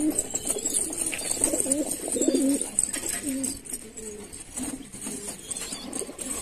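Several domestic pigeons cooing in their nest boxes, many low rising-and-falling coos overlapping, loudest a couple of seconds in.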